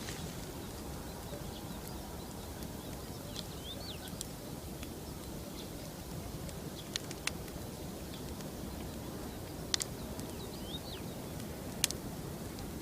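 Wood campfire burning with a few sharp pops over a steady low background noise; a bird gives a short chirp twice, about four and ten seconds in.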